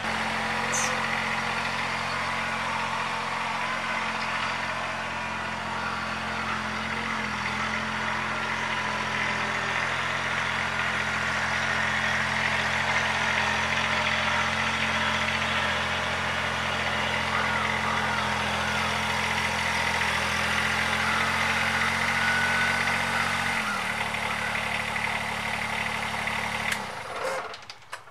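Kubota BX1880 sub-compact tractor's three-cylinder diesel engine running at a steady speed, its pitch shifting slightly a couple of times, then shut off near the end, winding down quickly.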